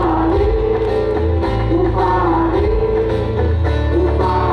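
Live band music: a singer carries a sliding, wavering melody over a steady bass line, from a stage performance of a pop song.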